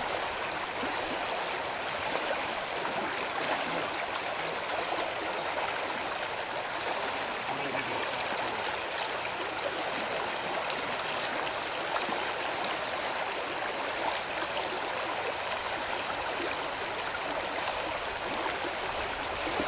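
Steady rushing of a fast, shallow trout stream running over a rocky riffle.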